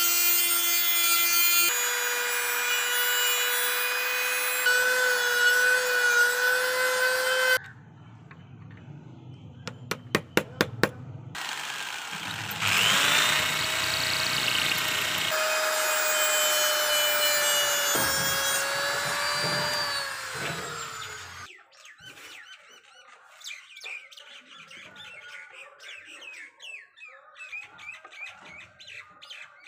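A small rotary tool with a cutting disc whines steadily as it grinds the end of a steel bolt, and cuts off after about seven seconds. A few sharp clicks follow. Then an electric drill spins up, whines steadily while boring into the bolt end, and winds down near the end. Quieter irregular clattering closes the window.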